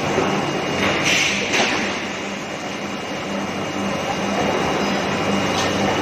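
Steady machinery noise of a steel-bar induction heating furnace line running, with a thin steady high tone. Three short hissing bursts cut in over it, two close together about a second in and a fainter one near the end.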